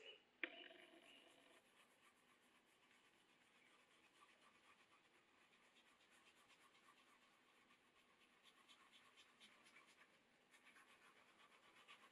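Faint scratchy rubbing of a wool dauber spreading dye over a leather sheath blank, stroke after stroke, more regular in the later part. About half a second in comes a single sharp tap with a brief ringing.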